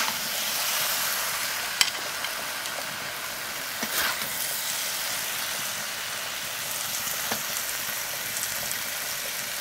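Jackfruit, potato and soybean curry in mustard oil sizzling in a pan, a steady hiss, with three sharp clicks a couple of seconds apart.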